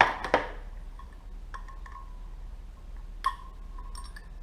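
Small metal carburetor parts and tools clinking on a workbench: a couple of sharp clicks at the start and another about three seconds in, with a faint metallic ring lingering after them.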